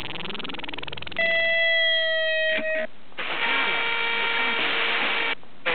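Sony XDR-F1HD FM tuner stepping through the band: short snatches of different stations' broadcast audio, broken by brief mutes about three seconds in and near the end. Some snatches carry hiss, and one holds a steady tone with overtones.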